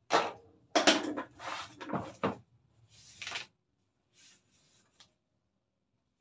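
Handling noises close to the microphone: a quick run of knocks, clatters and rustles over about three and a half seconds, then two faint ones.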